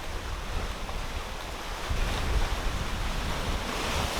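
Wind gusting against the microphone with a low rumble that grows stronger about halfway through, over the wash of sea waves on the shore.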